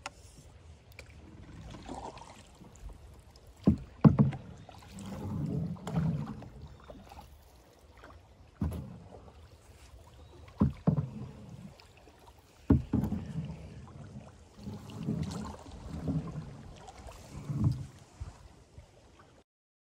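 Canoe being paddled: paddle strokes swishing and splashing in the river water, with several sharp knocks of a paddle against the canoe's hull.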